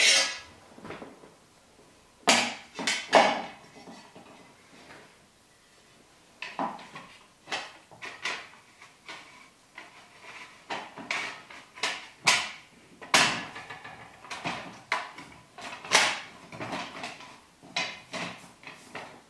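Irregular hard clacks and knocks, about a dozen, as painted diorama wall panels and thin metal tubes are handled, slid together and set down on a wooden table.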